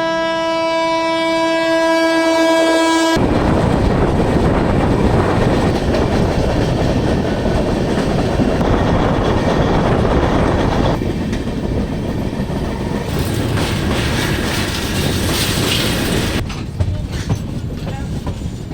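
WAP-7 electric locomotive horn sounding one steady held note for about three seconds, then cut off abruptly. It gives way to the loud, steady running noise of a train on the rails, with clickety-clack, which thins out with some sharp clicks near the end.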